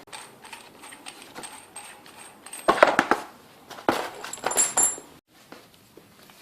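Metal bicycle headset parts and a crown race setter tool clinking and knocking as they are handled while the crown race is fitted onto the fork. Scattered light clicks, with louder knocks about three seconds in and again about four to five seconds in.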